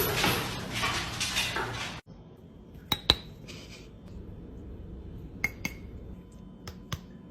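A loud, dense rushing noise for about two seconds, then it cuts off. After that come a few short, sharp clinks of hard objects, in quick pairs, against a quiet background.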